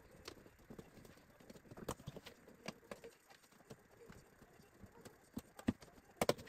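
Irregular light clicks and taps of an LED TV's plastic bezel frame being pried and unclipped by hand along the panel edge, with a sharp double click near the end.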